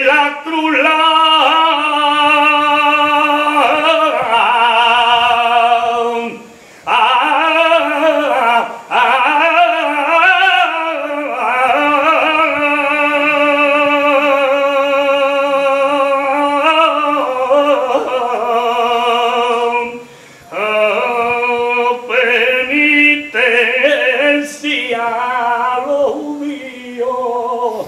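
A man singing a saeta unaccompanied: a solo flamenco-style sung prayer in long, held, ornamented phrases with a wavering vibrato, broken by two short pauses for breath, about six and a half and twenty seconds in.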